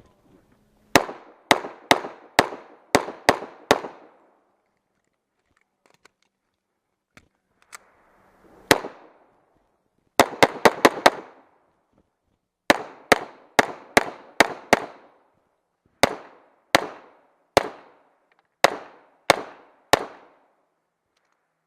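Rapid pistol fire from a .40-calibre STI 2011 during a competition stage. A string of about seven shots comes in the first three seconds, then a lone shot, a very fast burst of about five, and further strings of three to six, each crack trailing a short echo.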